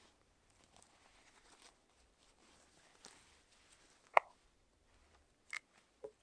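Canvas tent fabric and paracord handled at a wooden pole frame: faint rustling, then one sharp snap about four seconds in and two shorter ones near the end.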